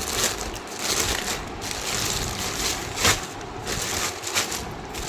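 Plastic packets crinkling and rustling as they are handled, with sharp crackles, the loudest about three seconds in.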